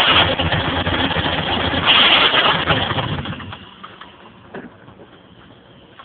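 The five-speed manual transmission of a 1992 Nissan Maxima SE grinds loudly over the running engine, in neutral with the clutch released. The owner found the gearbox with no oil in it and hopes that is the cause. The grinding stops abruptly about three and a half seconds in.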